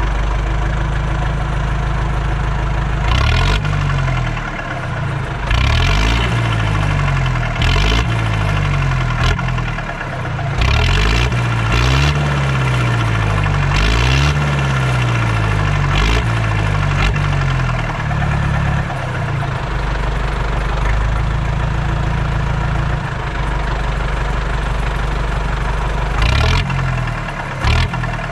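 IHC 845 XL tractor's diesel engine running through a straight stainless-steel exhaust pipe. It idles, is revved up and let fall back about half a dozen times between roughly 3 and 19 seconds in, settles back to idle, and is blipped once more near the end.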